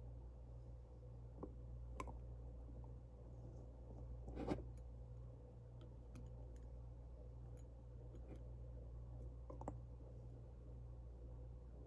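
Quiet room with a steady low hum and a few scattered faint clicks and taps, the loudest about four and a half seconds in.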